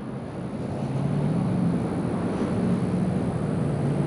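Highway traffic noise: a steady rush of passing vehicles with a low hum, swelling about a second in.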